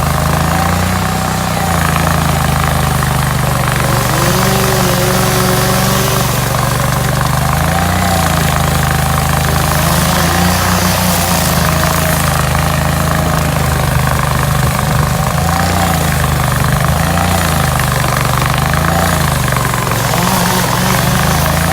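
Hydraulic stump grinder running hard. Its engine note dips briefly and recovers several times as the cutter takes load.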